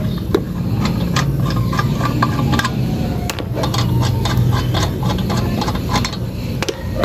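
Lug nuts being loosened and turned off a car wheel with a lug wrench: a string of short metallic clicks and clinks over a steady low hum.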